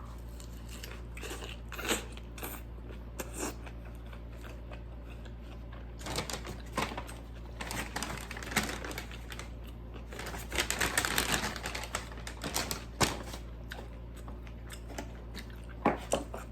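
Close-miked eating: chewing, biting and wet mouth clicks, in short scattered bursts, with about a second and a half of rustling around ten seconds in. A steady low hum runs underneath.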